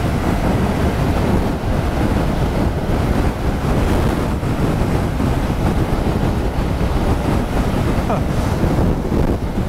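Heavy, steady wind rush buffeting the microphone of a motorcycle at highway speed.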